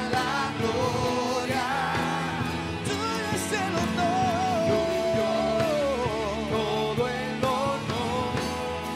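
Live worship band playing a slow Spanish worship song: several voices singing with wavering runs over keyboard, electric guitar and drums. One voice holds a long high note about four seconds in.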